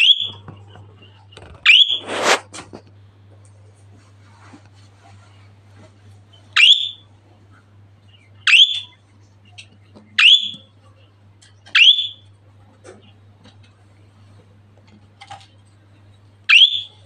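Budgerigar contact calls: about seven short, rising chirps, spaced one to a few seconds apart, with a brief rasping noise about two seconds in and a faint steady hum underneath.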